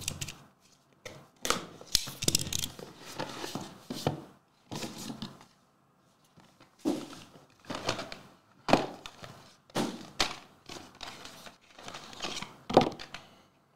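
Cardboard trading-card box being opened by hand: rustling and scraping of the card packaging, with a run of short sharp knocks and taps as the lid is lifted and the inner box slid out, the loudest knock near the end.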